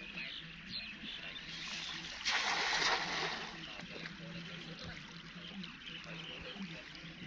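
A cast net landing on the water: one splash a little over two seconds in, lasting about a second, over a low steady background.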